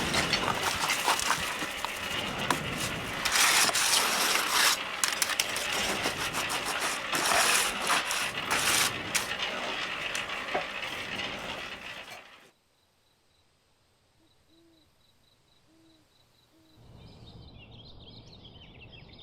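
Loud rattling and scraping from concrete work, with many sharp clinks, that cuts off suddenly about twelve seconds in. Near silence follows, then faint bird chirping near the end.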